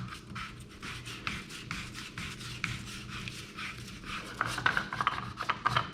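Hands rubbing and handling things, with many small clicks and a faint steady low hum underneath; the handling gets busier near the end.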